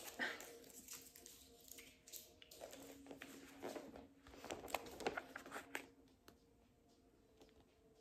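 Pages of a glossy magazine being turned and handled: soft paper rustles and a few light clicks in short, irregular bursts that stop about six seconds in.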